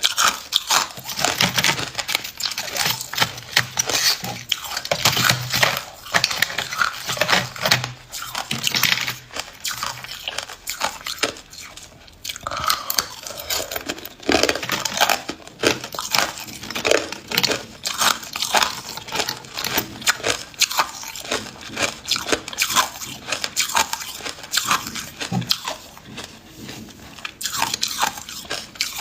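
Close-up crunching of hard ice being bitten and chewed: dense, irregular cracking and crackling crunches with a brief lull about midway.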